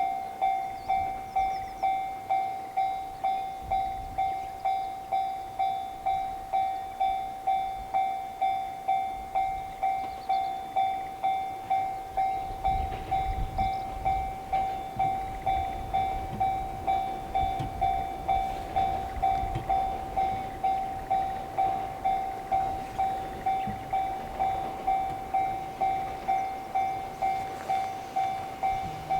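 Japanese level-crossing warning bell ringing its 'kan-kan' alarm, a single clanging tone repeated at an even, steady pace. A train's low rumble rises under it for several seconds midway.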